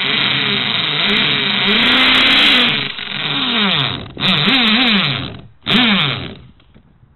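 Power drill boring through an old mobile phone, its motor speed rising and falling as the bit bites in. It stops briefly about four seconds in, runs in two more short bursts, then stops near the end.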